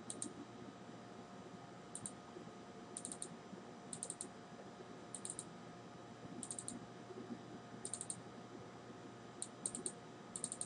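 Computer mouse button clicks, mostly in quick double-clicks, a group about every second, from double-clicking through folders in a file dialog.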